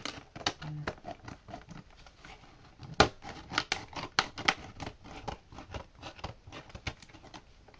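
Cutting open a cardboard box and its packaging: an irregular run of sharp snips, scrapes and rustles, the loudest about three seconds in.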